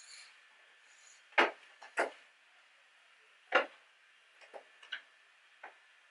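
Sharp clicks and ticks from hands working a metal yarn needle and yarn through a crocheted piece: three loud clicks in the first half, then a few softer ticks.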